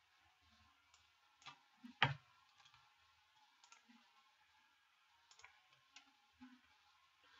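Scattered single clicks of a computer mouse, a few faint ones with a louder click about two seconds in.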